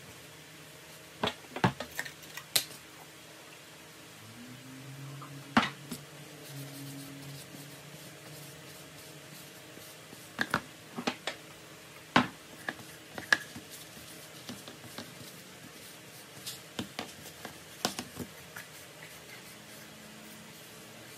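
A wooden scoop handled and wiped with a paper towel: scattered sharp taps and knocks of the wood against the cardboard-covered bench, with faint rubbing between them. A low hum comes in for a few seconds about four seconds in.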